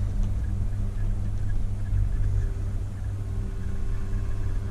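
Steady low rumble of a moving chairlift ride heard from the chair, with a faint steady hum coming in about two seconds in.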